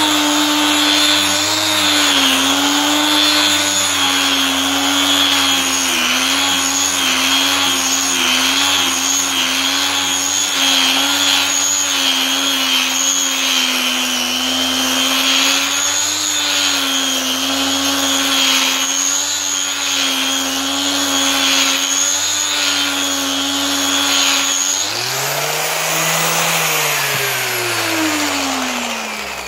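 Hand-held electric power tool running steadily, its pitch wavering as it is pressed against a surface to clean it. Near the end the pitch rises briefly as the load comes off, then falls away as the tool is switched off and spins down.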